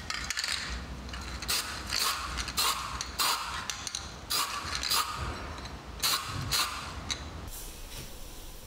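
A painted metal tape wheel and its axle pin handled in gloved hands: a run of short metallic scrapes and clicks, irregularly about one or two a second, as the pin is turned and worked in the wheel's hub. The scrapes stop shortly before the end.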